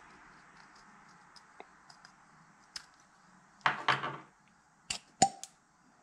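Copper pipe and its slip-on copper end cap being handled: a short scraping rattle a little past halfway, then three sharp metallic clicks, one of them with a brief ring.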